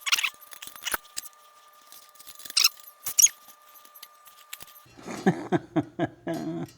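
Short, high squeaks and scrapes of metal hitch parts being worked against each other while being forced into place, then a quick run of clicks and clinks in the last couple of seconds.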